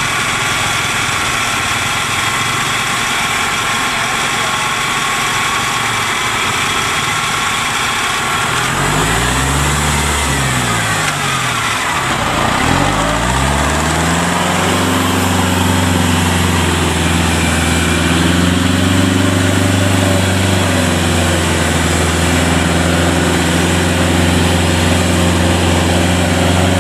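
Engine of a small tracked rice-sack carrier running as it drives along loaded with sacks. About a third of the way in its pitch rises and falls and dips once, then it settles into a steady, slightly louder run.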